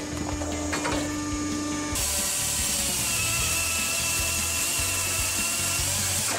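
Firewood processor's chainsaw bar cutting through a log. About two seconds in, a loud, steady, high-pitched hiss and whine of the chain in the wood sets in over the machine's running sound.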